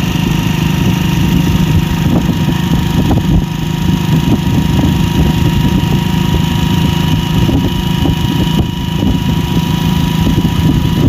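Tractor diesel engine running steadily while the tractor drives along the road, a constant low hum with a thin steady whine above it.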